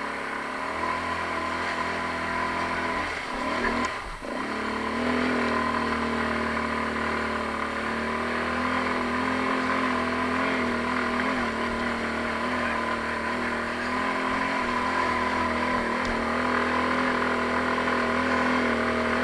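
Taotao 150cc single-cylinder ATV engine running under load on a trail climb, the revs dropping and sweeping back up about four seconds in, then pulling at a steady, slightly louder pitch.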